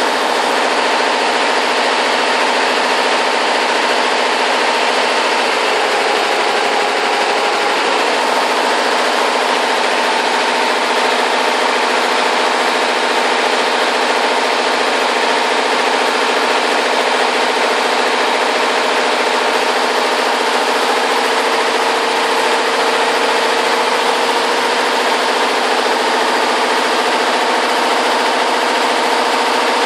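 Multi-head computerized embroidery machine stitching at high speed, its heads and needles running steadily with an even mechanical noise and a faint steady hum.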